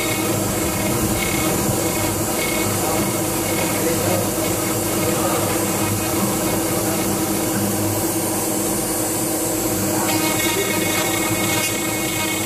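CNC router spindle running steadily as its end mill cuts plectrum shapes out of a timber blank.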